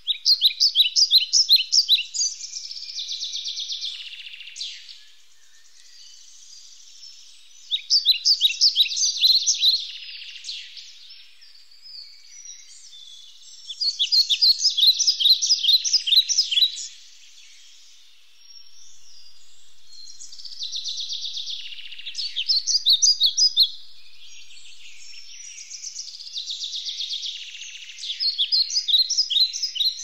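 A songbird singing a rapid trill of sharp, high notes, each bout about two to three seconds long. Five bouts come roughly every six seconds, with softer chatter between them.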